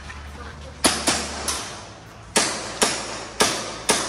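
Airsoft pistol firing six shots, starting about a second in: a quick pair, then four single shots at roughly half-second intervals, each a sharp report with a short ringing tail.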